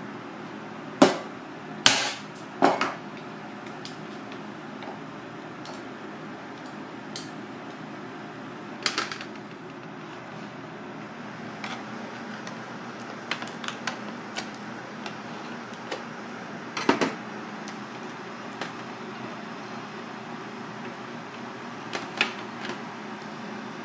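Scattered sharp clicks and knocks as a knife and cooked mud crab shells strike a steel tray, over a steady background noise. The loudest knocks come in a quick run of three about a second in, and another stands out about two-thirds of the way through.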